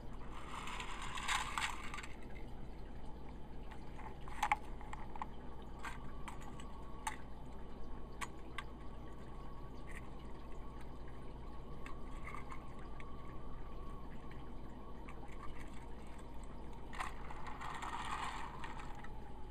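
Plastic and die-cast toy train pieces being handled at a toy crane set: scattered small clicks and knocks, with brief rustling about a second in and again near the end, over a steady low hum.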